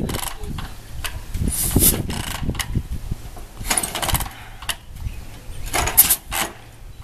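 Chopper motorcycle being kick-started: a series of irregular metallic clanks and clicks from the kick-start pedal and its gear as the engine is kicked through, without the engine firing.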